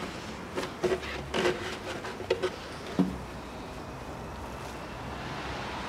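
Plastic air filter housing of a Kia Rio being handled: a few light clicks and knocks as the lid is held up and the old panel air filter is pulled out, the sharpest about three seconds in.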